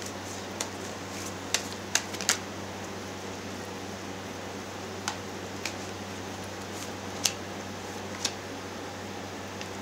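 Tarot cards being shuffled and drawn by hand: a scattered handful of short, sharp card clicks and snaps over a steady low hum.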